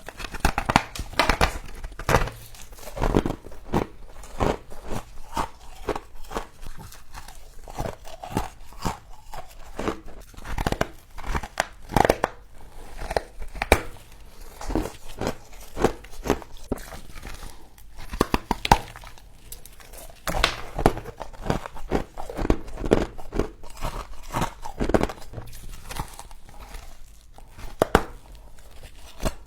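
Frost being crunched and chewed close to the microphone: a dense run of irregular crisp crackles and crunches.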